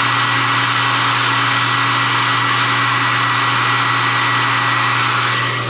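Heat gun blowing steadily, its fan running with a thin steady whine over a rush of air, heat-setting freshly airbrushed paint on a lure between coats.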